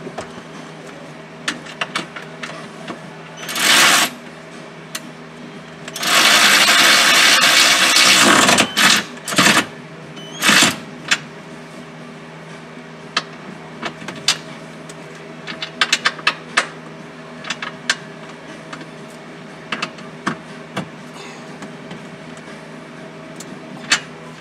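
Work with a tool under a car's dashboard, fastening a 10 mm nut: a few loud rasping bursts, the longest about two seconds, with many scattered clicks and knocks of parts and trim, over a steady hum.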